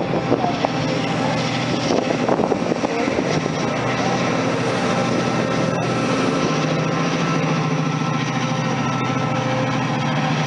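Passenger coaches rolling past, then the diesel engine of the Class 68 locomotive propelling at the rear of the train comes in, a steady low drone that grows stronger from about six seconds in.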